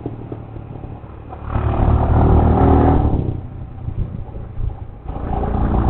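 Motorcycle engine and exhaust running under load on a climbing road. The revs swell about a second and a half in, ease off after about three seconds, and build again near the end.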